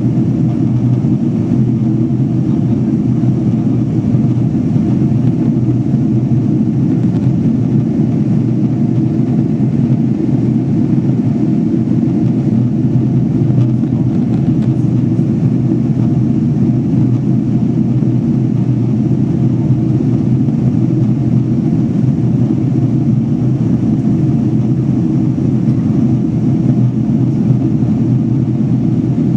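Steady jet airliner cabin noise in flight: engine and airflow drone heard from inside the cabin, deep and unchanging.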